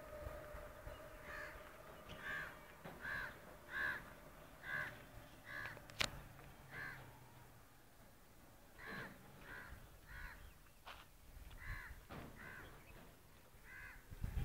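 Faint bird calls repeated over and over, one or two short calls a second, with a break of about two seconds midway. A single sharp click about six seconds in.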